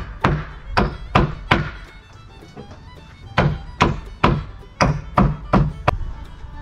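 Hammer driving nails into the wooden framing of a pop-up camper: a run of about five blows, a pause of about two seconds, then about seven more. Fiddle music plays underneath.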